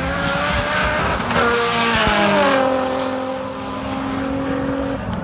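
Drag race car engines running hard at high revs, a steady engine note that drops in pitch about two seconds in.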